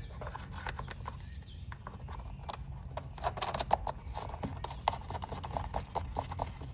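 Irregular small clicks and taps of hands working on a Husqvarna string trimmer, coming thick and fast from about two and a half seconds in, over a steady low hum.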